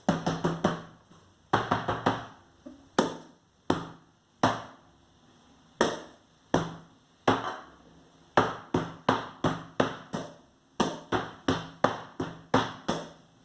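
Knocks on a wooden tabletop, struck like a drum: sharp hits, some with a low hollow boom, played in an uneven beat of single strokes and quick runs of four or five.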